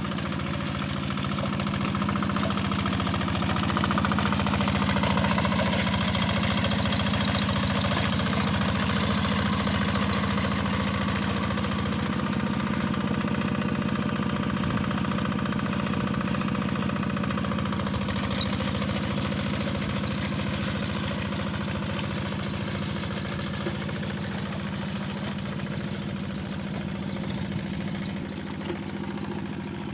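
Yanmar single-cylinder diesel engine of a two-wheel hand tractor running steadily, a little louder a few seconds in.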